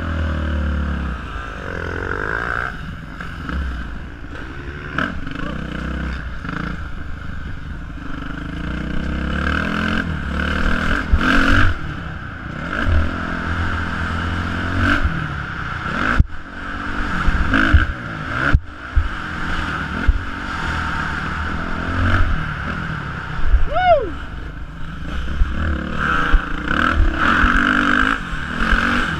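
Dirt bike engine revving up and down through the gears as it is ridden over a bumpy dirt track, with wind rumble on the helmet-mounted microphone and clatter over the bumps.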